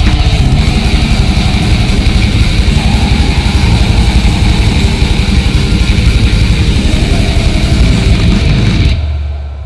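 Raw black metal: a dense, loud wall of distorted guitar and drums. About nine seconds in the playing stops, leaving a low note dying away as the track ends.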